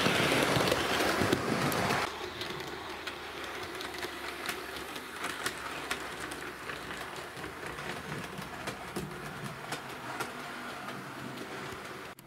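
Hornby OO-gauge model electric multiple unit running on the track: a loud rush of wheels and motor as it passes close by for the first two seconds, then a quieter steady running noise with light clicking as it carries on round the layout.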